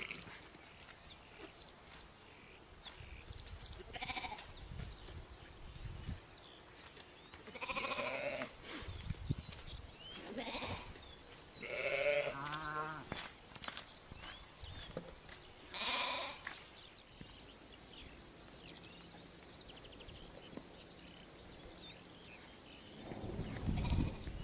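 Sheep bleating now and then: about five separate calls a few seconds apart, some with a wavering pitch.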